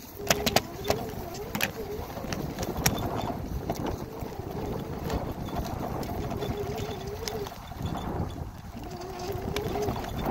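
Bicycle riding over rough dry grass: tyre rumble and wind on the microphone, with clicks and rattles as the bike jolts, most of them in the first few seconds. A wavering hum comes and goes.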